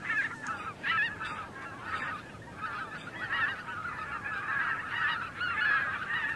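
A flock of wild geese calling, many honks overlapping in a continuous chorus.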